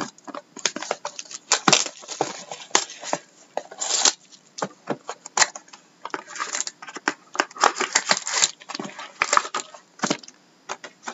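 Cardboard trading-card hobby box being torn open along its perforated strip and the lid pulled back, then the foil-wrapped card packs inside being handled. It comes as a dense run of short crackles, rips and crinkles.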